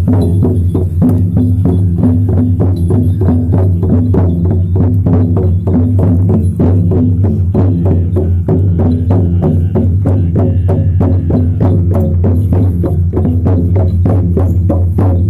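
Music: a steady low drone under a quick, even percussive beat.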